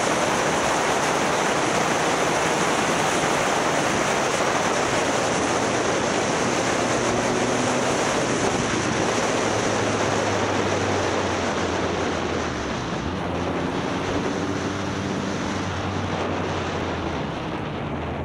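Heavy wind rushing over the microphone of a moving motorcycle, with the engine running steadily underneath; about twelve seconds in the wind eases a little and the engine's hum comes through more clearly.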